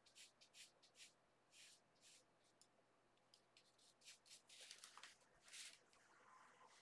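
Near silence, with faint short scratchy strokes of a small paintbrush working acrylic paint onto canvas paper, in a few clusters.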